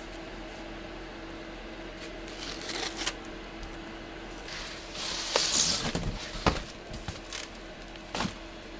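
Packing tape and plastic wrap on a cardboard shipping box being slit with a blade and torn open, with cardboard scraping and a few sharp knocks as the outer box is pulled off. The loudest tearing and scraping comes a little past the middle. A steady low hum runs underneath.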